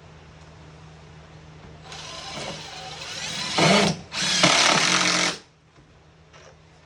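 Power drill driving a #8 GRK screw into plywood sheathing. The motor runs about two seconds, getting louder as the screw sinks, pauses briefly, then runs again for about a second before stopping.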